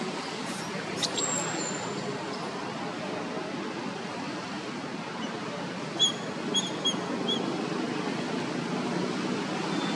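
Steady outdoor background rumble, like distant traffic, with four short high squeaks about six to seven seconds in.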